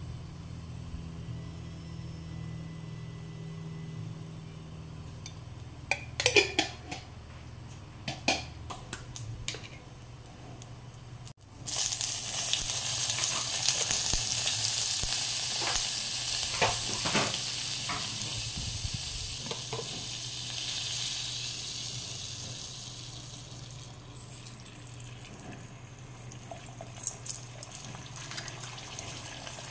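Butter sizzling in a hot electric cooking pot. The sizzle starts suddenly about a third of the way in and fades away over the next ten seconds or so, with a few knocks of a wooden spatula against the pot. There are scattered knocks before it and light clicks near the end as an egg is cracked into the pot.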